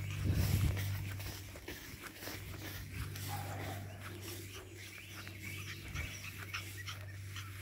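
Boston Terrier puppies scampering through grass with a brief puppy squeak about three seconds in, over a steady low hum. Low bumps come about half a second in.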